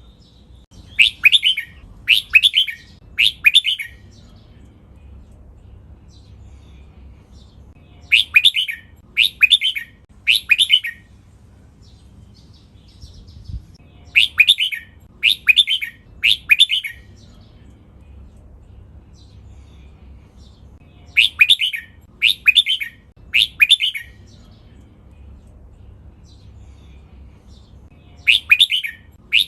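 Red-whiskered bulbul singing short song phrases in sets of three, about a second apart, with a pause of several seconds between sets. Five sets are heard.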